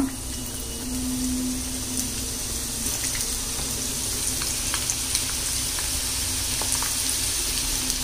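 Long-sliced onions deep-frying in hot oil in a kadai: a steady sizzle with scattered small crackles.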